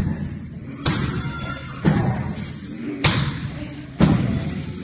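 Muay Thai kicks and strikes landing on a held pad, four solid thumps about a second apart, each with a short echo in the gym.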